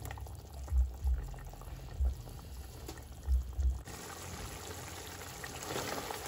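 A pot of lamb curry boiling, with a few dull low thumps. About four seconds in it gives way to a spatula stirring through the thickened curry, louder for a moment near the end.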